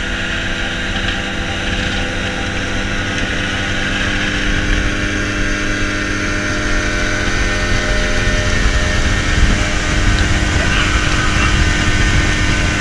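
Outboard motor on a small open boat running steadily at an even speed while the boat is under way, with a constant rushing noise over it.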